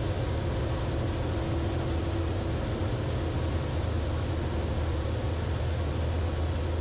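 Steady in-cabin drone of a Zenith CH 650's direct-drive, air-cooled four-cylinder engine and propeller at economy cruise, with an even hiss of airflow over it.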